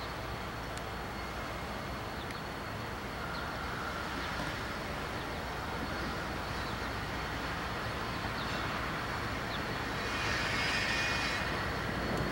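Diesel engine rumble of a GE AC4400CW freight locomotive creeping toward the listener at low speed, growing slowly louder. A hiss rises for a couple of seconds near the end.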